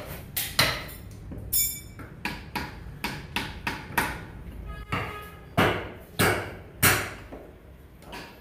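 Butcher's knife chopping beef against a wooden chopping block: a run of sharp knocks, about two to three a second, the loudest coming just past the middle. A brief ringing tone sounds about one and a half seconds in.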